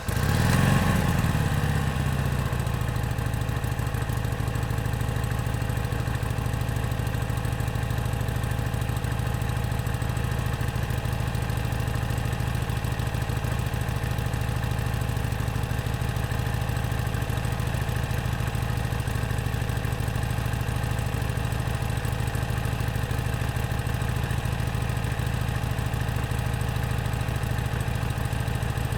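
Harley-Davidson V-twin motorcycle engine, just started, dropping from a brief rev to idle in the first couple of seconds, then idling steadily.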